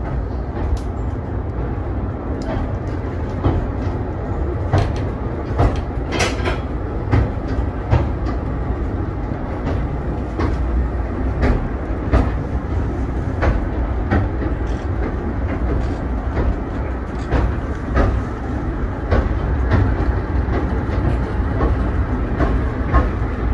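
Wooden passenger carriage of the Hythe Pier Railway's electric third-rail train, heard from inside while it runs along the pier. A steady low rumble from the wheels on the track, with irregular sharp clicks and knocks from the wheels and the rattling wooden body.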